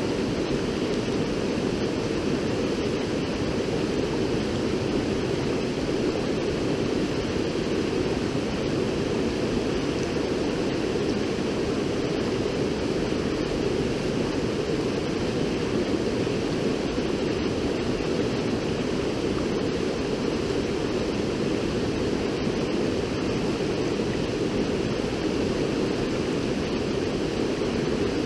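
A river rushing, a steady unbroken noise of flowing water with no change in level.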